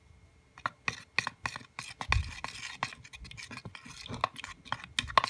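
A utensil scraping and clicking against a bowl, stirring blue food coloring into clear glue, in quick irregular strokes starting about half a second in.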